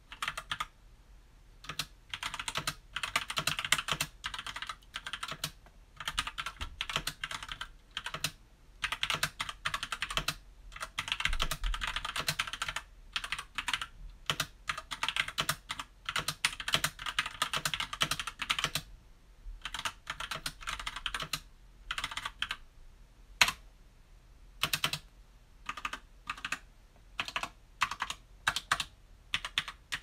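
Typing on a SteelSeries Apex 7 TKL mechanical keyboard with red linear switches: rapid runs of keystroke clicks in bursts, broken by short pauses.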